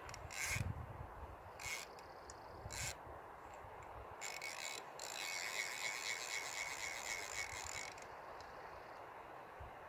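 Fly reel drag ratcheting as a hooked steelhead pulls line off the reel: three short bursts in the first three seconds, then one long run from about four to eight seconds in.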